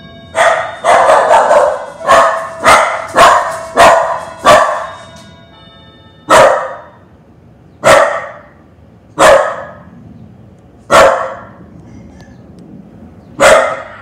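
Puppy barking at the doorbell: a quick run of sharp barks for the first few seconds, then single barks every second and a half to two. Under the first barks the doorbell chime's tones ring on and fade.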